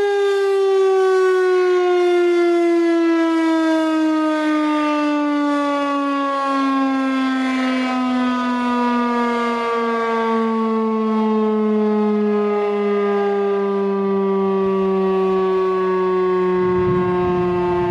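Federal Signal STH-10A tower-mounted civil defence siren, its Valley motor driving the rotor, sounding a single loud tone that slides slowly and steadily down in pitch: the siren winding down after the Alert signal. Its upper tones brighten about every three seconds as the rotating horn sweeps round.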